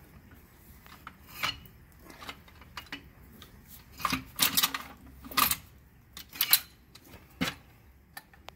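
Steel Hi-Lift jack and its wheel-lift attachment being fitted to a front wheel: scattered metal clicks and clanks, busiest about four to five and a half seconds in.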